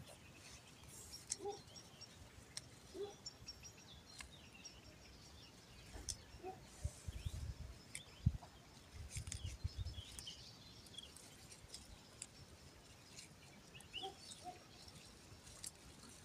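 Small birds chirping faintly and sporadically, with a few short lower calls. Occasional soft clicks and rustles come from seedlings being pulled by hand from garden soil.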